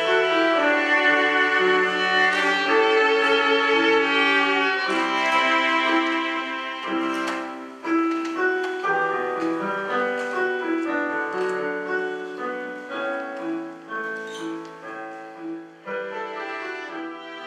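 Music: a violin playing sustained melodic notes over piano accompaniment, in a classical style, getting quieter in the second half.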